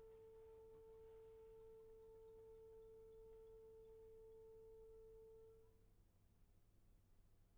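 A single faint, steady, nearly pure held note from a chamber orchestra, with a few faint high pings in the first second or so. The note fades and stops about five and a half seconds in.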